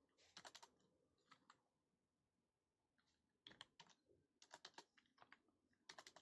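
Faint computer keyboard typing in short bursts of keystrokes, with a pause of about two seconds in the middle.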